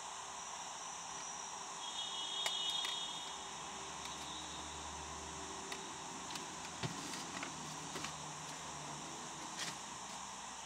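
Quiet church room tone during silent reflection: a steady hiss with a few faint clicks and knocks, and a brief high squeak about two seconds in.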